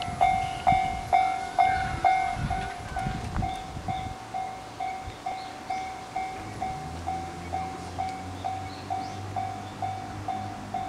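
Japanese level-crossing warning bell ringing, a single electronic ding repeated about twice a second, loudest in the first few seconds. From about four seconds in, the low steady hum of a KiHa 75 diesel railcar's engine sounds beneath it.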